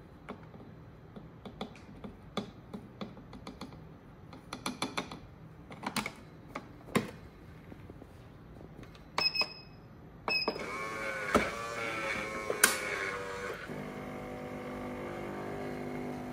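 Light plastic clicks and taps of the bean-to-cup coffee machine's powder chute and lid being handled, then two short beeps from its control panel about nine and ten seconds in. The machine's motor then starts with a wavering whine for about three seconds and settles into a steady hum as it begins brewing from pre-ground coffee.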